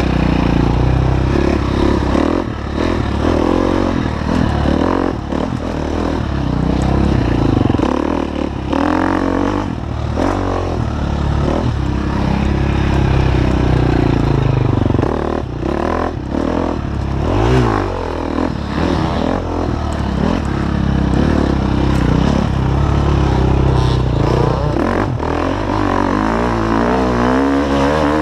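Off-road dirt bike engine ridden hard along a trail, revving up and down as the throttle opens and closes every few seconds. Short knocks and clatter from the bike run through it.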